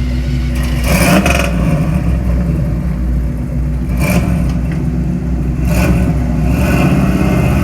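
Terminator Cobra's engine running steadily, heard from inside the car while driving. Several short, higher-pitched noises come and go over it, about a second in, around four seconds and again near the end.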